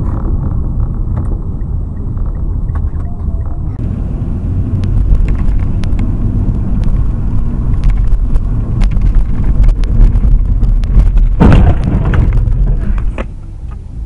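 Steady low rumble of a vehicle driving, with many small clicks and knocks. A sudden loud noise comes about three-quarters of the way through.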